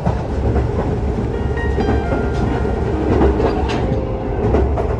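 Kanpachi Ichiroku diesel tourist train running, heard from inside the car: a steady low rumble with scattered clicks of the wheels over the track.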